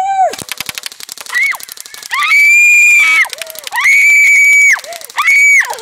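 Airsoft gun firing a rapid burst, about a dozen sharp shots a second for a second and a half. It is followed by three long, loud, high-pitched screams from a child.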